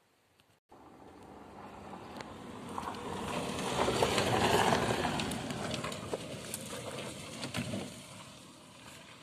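A passing vehicle: a rushing noise with scattered clicks that begins abruptly just under a second in, swells to its loudest about four to five seconds in, and then fades away.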